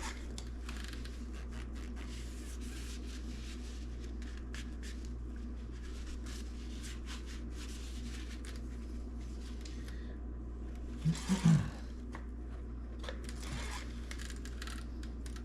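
Light handling clicks and rubbing over a steady low hum, with a brief cluster of louder knocks about eleven seconds in.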